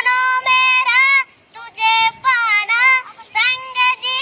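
A boy singing a Hindi song unaccompanied in a high voice, holding wavering notes in short phrases, with a brief pause about a second and a half in and a quick breath near the end.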